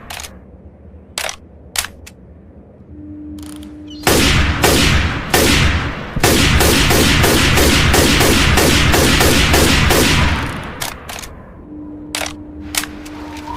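Ruger Mini-14 rifle firing: a few single shots, then a run of rapid fire at several shots a second for about six seconds, then a few more single shots. Each shot trails off in a short ring.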